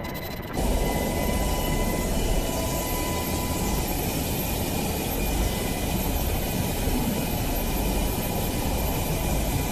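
Helicopter running close by: a steady heavy rush of rotor and engine noise with a faint steady whine on top. It comes in suddenly about half a second in.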